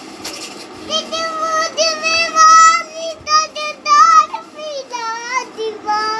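A small child singing in a high voice, holding notes with a wavering pitch, in short phrases with brief pauses; the singing starts about a second in.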